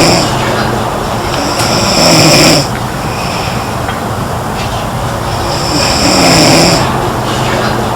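A girl snoring in a slow, regular rhythm: a snore ends just after the start and two more come at about two and six seconds in, each a rough low buzz with a hissy rasp on top. A steady background hiss continues between the snores.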